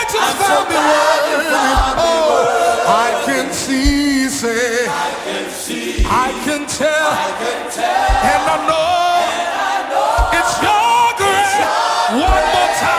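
Live gospel worship music: several voices singing together over a slow beat, with a low drum thump about every two seconds.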